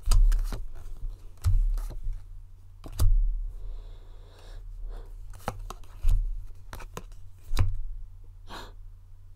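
Tarot cards being handled and set down on a table: about six sharp taps, each with a dull thump, a second or so apart, and a soft rustle in between.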